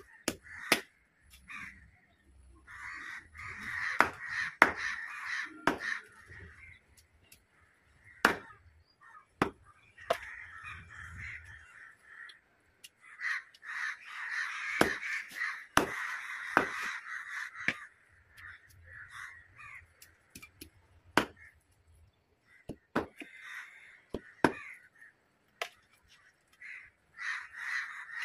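Meat cleaver chopping a fish on a wooden block: sharp single knocks at irregular intervals. Bursts of harsh bird calls come and go between the chops.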